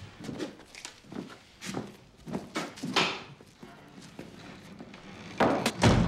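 Scattered footsteps and scuffs on a straw-covered floor as men walk away, with a louder knock about three seconds in. The sounds get louder and busier near the end.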